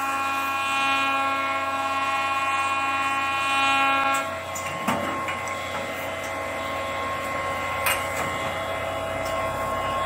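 Automatic wooden hammer-handle making machine running. A steady whine made of several tones lasts about four seconds, then stops, and the machine runs on with a rougher, noisier sound. Two sharp clicks come about three seconds apart.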